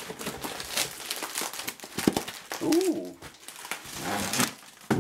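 Plastic air-column packaging and bubble wrap crinkling and rustling as a laptop is handled and pulled out of it, with a short pitched sound about three seconds in.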